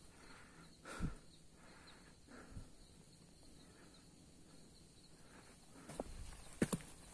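A hiker's footsteps on a mountain trail: a few scattered steps, a quiet stretch in the middle, then steps again near the end.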